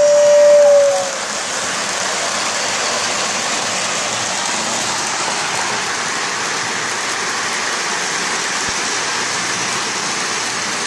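A model train whistle's steady tone ends about a second in, sliding down slightly as it stops. Then comes the steady rushing hiss of Lionel O-gauge trains running, wheels and motors rolling on metal three-rail track.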